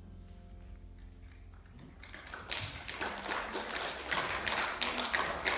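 The final piano chord fading away, then a small audience applauding, the clapping starting about two and a half seconds in.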